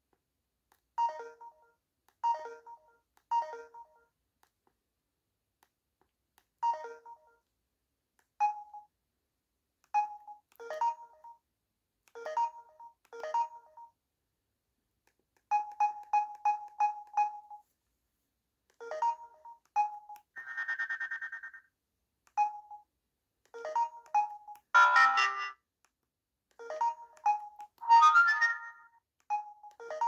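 Preloaded SMS alert tones on a Samsung Ultra S phone, previewed one after another: short electronic chimes and beeps of a few notes each, separated by brief silences. Past the middle comes one buzzier tone, and near the end the alerts are louder and busier.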